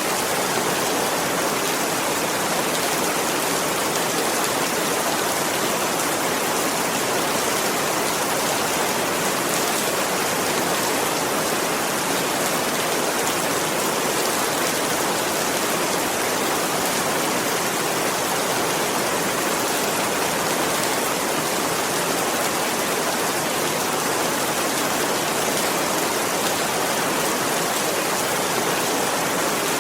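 Steady rainfall: an even, unbroken hiss of rain with no single drops or changes standing out.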